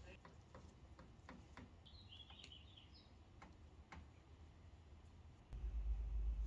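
Faint clicks and small handling noises as wire and a barrel connector are worked by hand, with a short high chirp about two seconds in. About five and a half seconds in, a low rumble sets in as a lighter flame is held to heat-shrink tubing.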